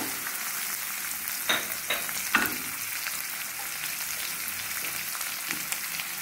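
Chopped onion, green chilli and ginger sizzling steadily in hot oil in a nonstick pan. A wooden spatula knocks against the pan three times near the middle.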